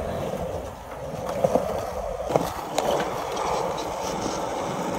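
Skateboard wheels rolling on a concrete skatepark surface: a steady rolling rumble with a few sharp clicks along the way.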